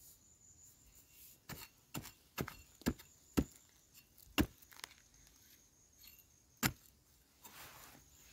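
Metal digging spade chopping into hard, stony soil around a wild yam tuber: about seven sharp separate strikes over the first two-thirds, followed by a short scrape of the blade through the earth near the end.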